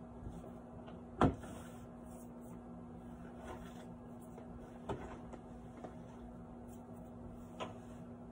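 A few knocks and clatters of kitchen items being handled on a countertop, the loudest about a second in, over a steady low hum.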